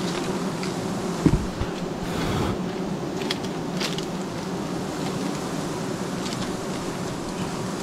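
A honeybee colony buzzing steadily, a low even hum from many bees stirred up by the hive being opened and smoked. There is a single short knock a little over a second in.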